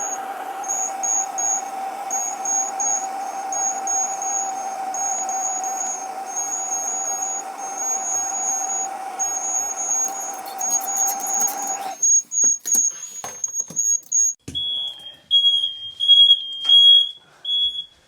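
Smoke alarms sounding: a high-pitched, rapid, uneven beeping, then from about fourteen seconds in a lower-pitched alarm beeping about twice a second. Under the first alarm a steady hum with a hiss runs until it cuts off about twelve seconds in, followed by a few sharp knocks.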